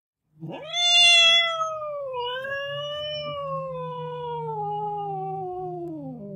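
A cat giving one long, drawn-out meow of about six seconds. It rises sharply in pitch at the start, is loudest about a second in, then slowly falls in pitch until it stops near the end.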